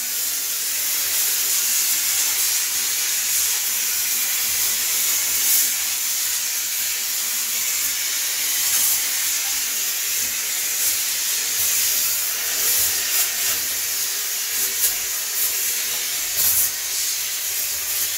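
Kärcher steam cleaner jetting steam from its nozzle, a loud steady hiss, aimed at limescale-crusted shower tile grout.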